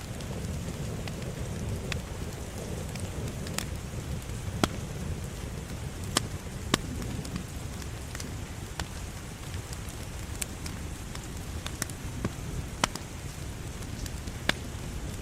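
Wood fire burning in a fireplace: a steady low rush of flames with sharp, irregular crackles and pops every second or so.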